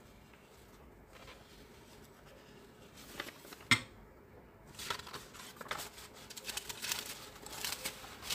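Paper rustling and crinkling as a large printout sheet is handled and lifted off a sheet of carbon paper, faint at first and busier in the last few seconds, with one sharp tap a little past the middle.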